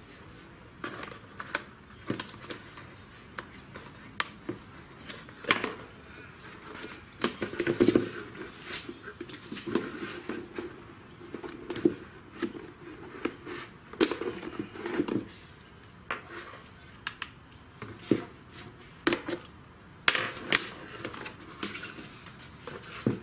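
Irregular plastic clicks, knocks and rattles from a welding helmet being handled on a wooden table while its auto-darkening lens cartridge is unclipped and taken out. There are a few heavier knocks against the table along the way.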